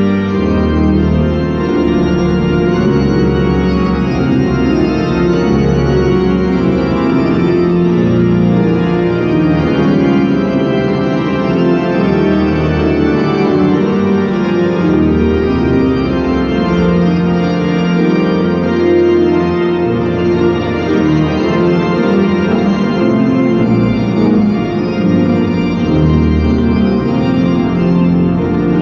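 Johannus Ecclesia D 450 digital church organ playing a loud improvisation: full sustained chords over deep pedal bass notes that change every few seconds.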